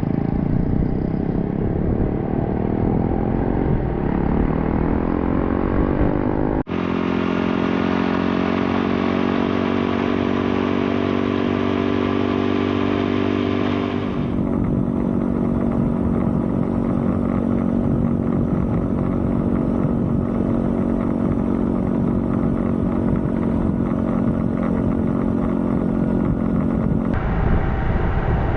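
Small 125cc-class motorcycle engine running. Its revs rise and fall for the first several seconds, then after an abrupt cut it holds a steady note at constant speed while riding.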